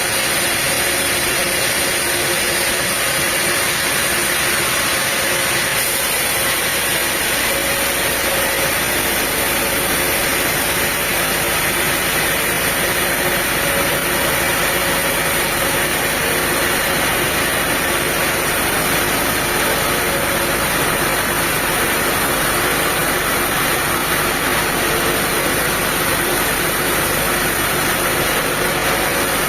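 Diesel engine of the sawmill machinery running steadily, a constant mechanical noise with no pauses; its low end deepens slightly about six seconds in.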